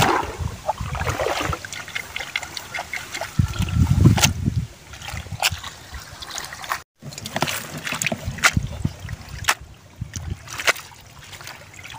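Water splashing and dripping as a perforated plastic basket of gourami fry is worked in a tub of water, with many short splashes and drips.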